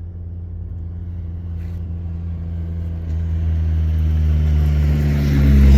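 A car engine running hard as the car comes closer, growing steadily louder with a fairly steady engine note.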